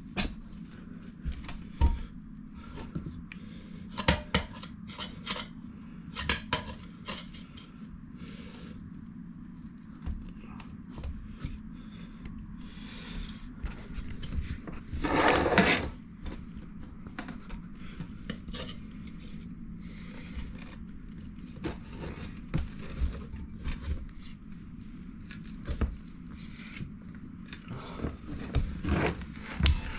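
Metal tire spoons clinking and scraping against a dirt bike wheel rim as the tire bead is levered on, in scattered clicks and knocks, with one louder scrape of about a second halfway through.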